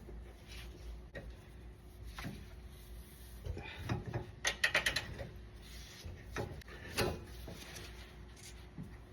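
Hand tools working on the last front mounting bolts of a rear differential: scattered knocks and clicks of metal, with a short run of quick clicks about halfway through and a sharper knock about two seconds later.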